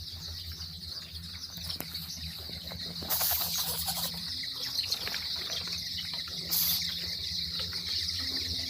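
Chickens flapping their wings in two short flurries, one about three seconds in lasting about a second and a briefer one near seven seconds, over a steady high-pitched chirring and a low hum.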